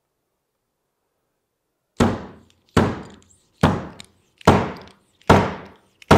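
Fork seal driver slid down a 39mm fork tube and knocked against the new fork seal, driving it into the fork's lower leg. Six sharp knocks a little under a second apart, starting about two seconds in.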